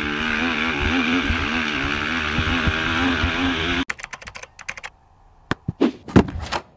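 Yamaha racing ATV's engine running hard, its pitch wavering up and down as the throttle is worked. It cuts off suddenly a little over halfway and gives way to laptop keyboard typing clicks, then a few louder knocks near the end.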